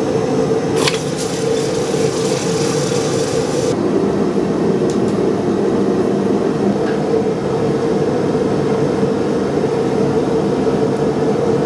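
Propane gas forge burner running with a steady, even roar and a strong low hum, heating the bar. A short click sounds about a second in.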